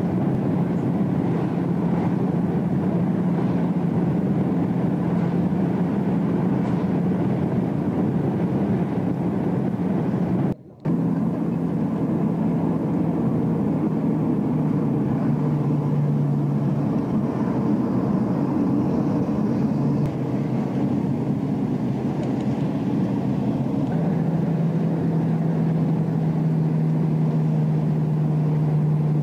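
Inside a moving motor vehicle: a steady engine drone with road and wind rumble, heard through an old camcorder's built-in microphone. The engine note dips a little lower a couple of times in the second half, and the sound cuts out for a moment about ten seconds in.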